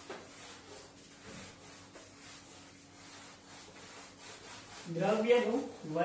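Whiteboard duster rubbing back and forth across a whiteboard in repeated strokes, wiping the marker off. A man's voice is heard briefly near the end.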